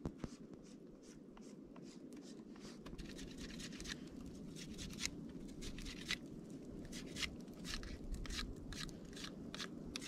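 Knife whittling a wooden stick: short, irregular scraping strokes, a few a second, beginning about three seconds in, over a steady low rushing background.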